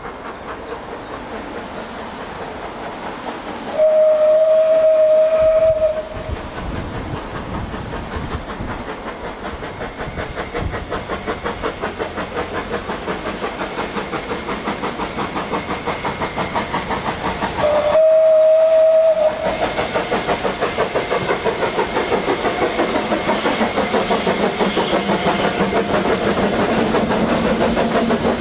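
Steam locomotive sounding its whistle twice: a steady blast about four seconds in and a shorter one around eighteen seconds in. A fast, even rhythmic beat from the running train grows louder toward the end as it approaches.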